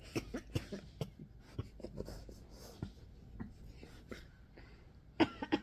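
A dog licking and nuzzling a person: quiet, irregular wet clicks and soft rustling, with a louder quick cluster of clicks about five seconds in.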